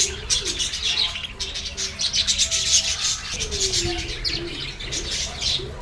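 Lovebirds chirping in a dense, rapid chatter of high notes, with a few lower gliding calls underneath.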